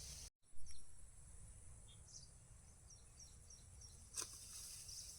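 Outdoor insect noise: a steady high-pitched drone of crickets. From about two seconds in, a run of short high chirps repeats about three times a second, and a single sharp click comes a little after four seconds.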